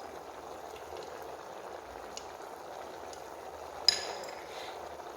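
Meat with onion, garlic, parsley and cinnamon sticks sizzling and bubbling in oil and a little water in a cooking pot, a steady hiss as it sautés. A single sharp clink, like a utensil against the pot, about four seconds in.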